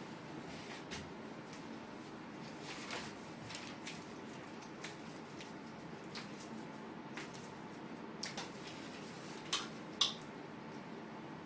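Quiet room hiss with scattered soft clicks and rustles, and two sharper clicks close together near the end.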